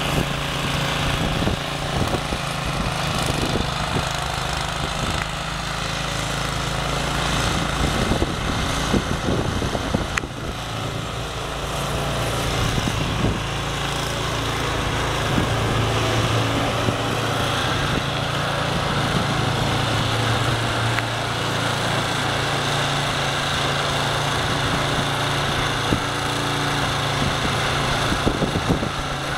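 Gas snowblower engine running steadily while clearing snow, with scattered short knocks over the engine.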